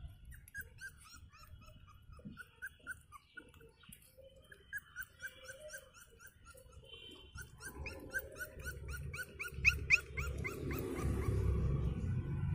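Puppies whimpering in rapid runs of short, high squeaks, a few a second, growing louder toward the end, over a low scuffling noise.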